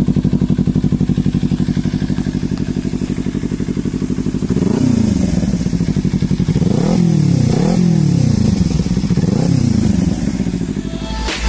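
Kawasaki Z300 parallel-twin engine idling through an aftermarket Akrapovic exhaust with a steady pulsing beat. About four and a half seconds in, it is blipped up several times in quick revs that each rise and fall back to idle.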